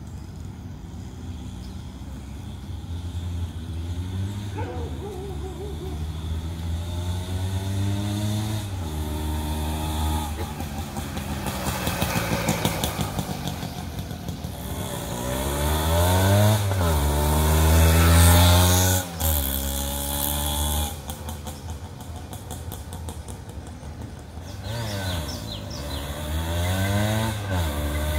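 Suzuki Max 100 two-stroke motorcycle being ridden past. The engine note climbs and drops back several times as it goes up through the gears, and it is loudest about two-thirds of the way in.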